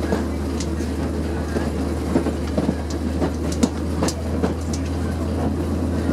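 Train rolling slowly along the track, heard from aboard: a steady low drone with a dozen or so irregular clicks and clacks as the wheels cross rail joints and points.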